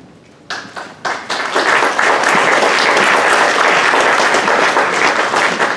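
Audience applauding: a few first claps, then within a second or so a dense, steady round of clapping that thins out near the end.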